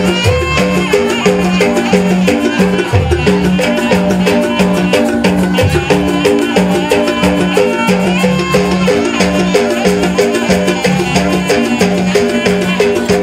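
East Javanese jaranan accompaniment music playing loudly: drums over a fast, repeating pattern of pitched metallic notes, keeping a steady, driving rhythm.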